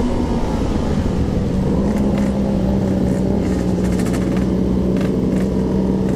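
Yamaha RX-King two-stroke single-cylinder motorcycle engine running at a steady speed while riding, through its Packing Power standard-style exhaust. Its tone holds steady rather than rising or falling.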